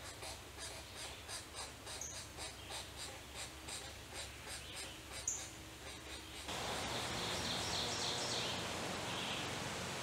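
Pileated woodpecker nestlings begging from the nest cavity, a fast rhythmic series of short rasping calls, about five a second. About two-thirds through the sound cuts to a steady outdoor hiss with a bird singing faintly.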